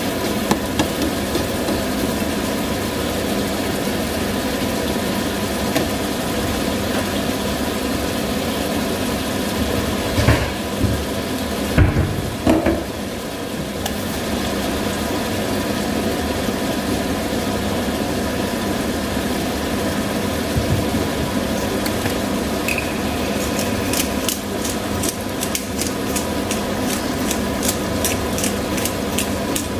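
Squid frying in a pan, sizzling under a steady mechanical hum, with a few knocks of utensil on cookware about ten to thirteen seconds in. Near the end a hand pepper grinder is turned over the pan in a quick run of clicks.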